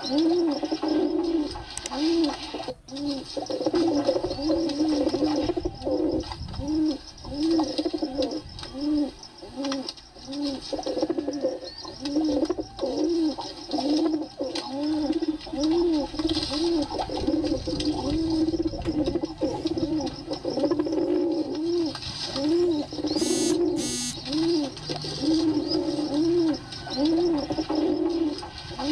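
Several pigeons cooing without a break, one low arched coo after another, overlapping at about one to two a second.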